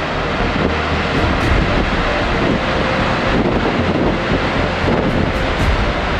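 Alexander Falls, a waterfall of about 43 m, making a steady, loud rushing roar of falling water.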